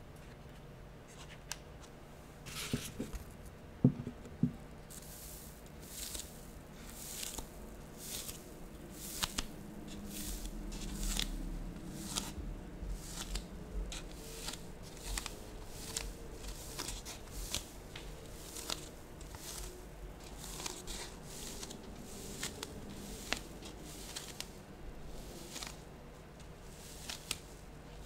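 Close-miked ASMR handling sounds: lotion being rubbed on the hands for the first several seconds, with a few knocks about four seconds in, then a piece of sticky Styrofoam squeezed and rubbed, giving irregular crackles, scratches and faint squeaks.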